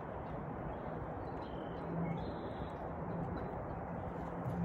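Steady outdoor background noise with a few short, high bird chirps.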